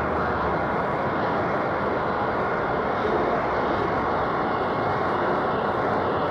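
Woollen-mill carding machines running: a steady, dense mechanical noise that holds at one level throughout.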